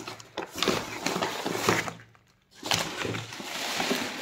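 Brown kraft-paper mailer bag rustling and crinkling as it is handled, with many small crackles, and a half-second break of silence a little after halfway.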